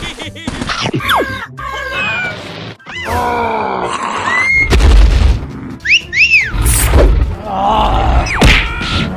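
Cartoon soundtrack: music with comic sound effects, including a cartoon character yelling, whistle-like pitch slides and a few heavy low thumps.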